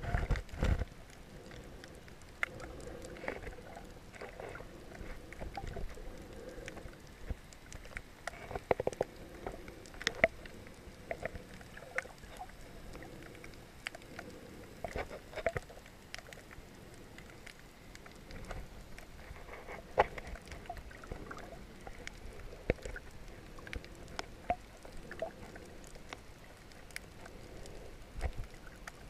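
Underwater sound picked up through a camera's waterproof housing: muffled sloshing of water with scattered sharp clicks and crackles, and a low thump about half a second in.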